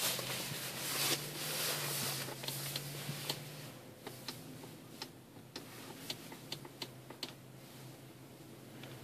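A small console switch beside the gear shifter of a 2013 Hyundai Santa Fe being clicked over and over, about a dozen sharp clicks, two or three a second, that stop near the end. Under them is the steady low hum of the idling engine, and at the start a few seconds of rustling hiss.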